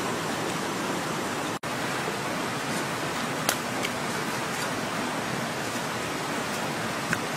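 Steady rushing noise like running water, with a brief dropout about a second and a half in and a couple of faint clicks later on.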